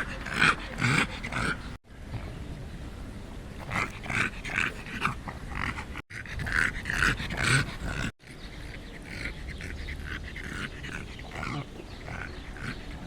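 Small, fat dog making pig-like noises in quick runs of short bursts, several clusters in a row, over a steady low rumble.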